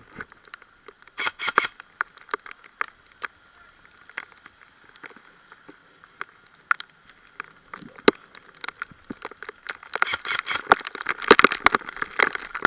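Footsteps and body movement through leaf litter and brush: scattered crackles and rustles, turning into a dense, louder stretch of rustling about ten seconds in.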